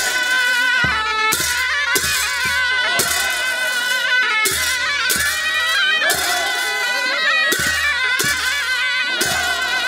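Traditional Nepali folk music: a shrill wind instrument plays a wavering melody over a steady drum beat.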